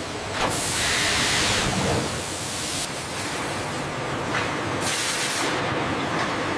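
Loud hissing noise of industrial machinery, like spraying air or steam, that changes abruptly in strength every second or two.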